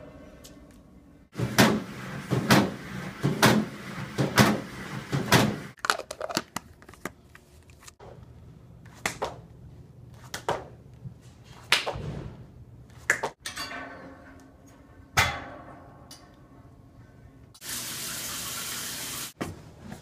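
A sequence of gym sounds: a weight machine's stack clanking about once a second for several seconds, then scattered thuds and clicks, and near the end a steady rush of running water for about a second and a half.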